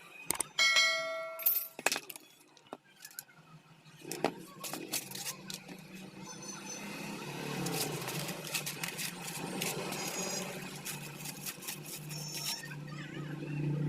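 Metal parts being handled: scattered clicks and clinks, one ringing clink about a second in, and busier clattering from about four seconds on, over a steady low hum.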